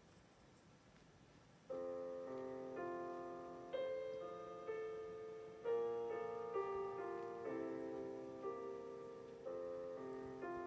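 Background piano music starting about two seconds in: a slow piece of chords, a new one struck about once a second and fading away. Before the music it is near silent.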